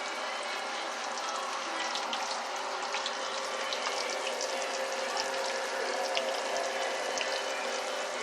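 Floured chicken bites deep-frying in a pan of hot oil: a steady sizzle with frequent small pops and crackles.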